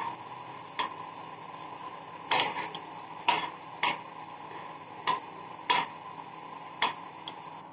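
Metal ladle stirring thick wheat rava kichadi in a pan, with about seven short knocks of the ladle against the pan at uneven intervals over a faint steady hum.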